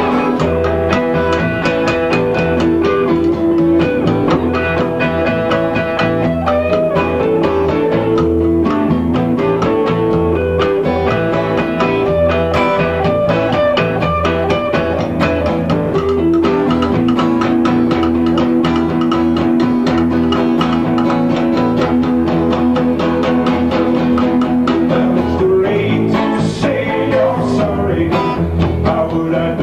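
A small band playing live, with a hollow-body electric guitar carrying long held melody notes over acoustic bass and percussion.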